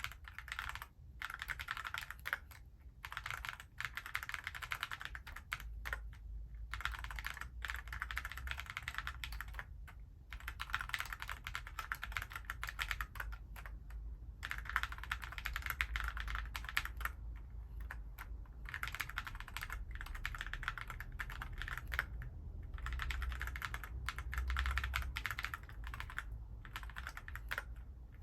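Alice-layout mechanical keyboard being typed on quickly and continuously, dense runs of keystroke clicks broken by short pauses every few seconds.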